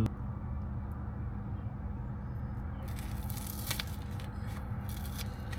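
Steady low hum of rooftop HVAC equipment running. From about three seconds in there is rustling and scraping with a few sharp clicks, like things being handled close to the microphone.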